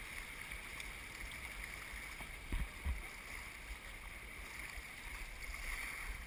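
Steady rush of river rapids around a canoe, with two short dull thumps a fraction of a second apart about two and a half seconds in.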